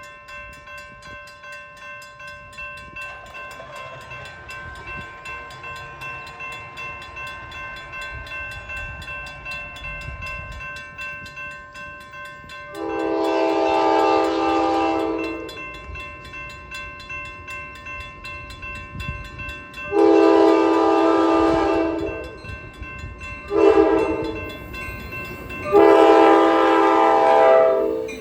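A bell rings steadily, about two strokes a second. Then a train's multi-chime horn sounds long, long, short, long: the standard warning for a grade crossing.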